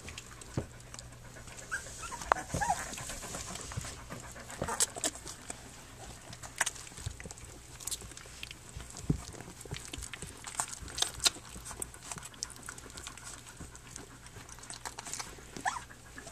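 Three-week-old Standard Schnauzer puppies nursing: irregular wet suckling clicks and smacks, with a few brief high squeaks about two and a half seconds in and again near the end.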